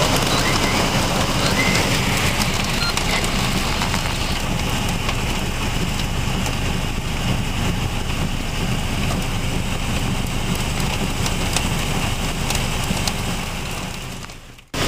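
Heavy rain mixed with hail pelting down in a steady, dense hiss and patter, fading away just before the end.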